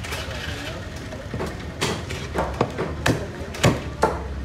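A large knife chopping through a tuna head onto a wooden log chopping block: about seven sharp chops at an uneven pace, most of them from about a second in.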